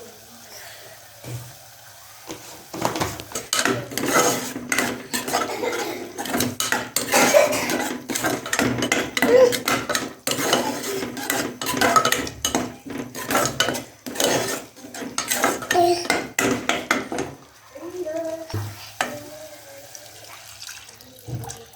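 Metal utensil clattering and scraping against a cooking pot, a fast irregular run of clinks and scrapes as the pot's contents are stirred. It starts a few seconds in and dies away near the end.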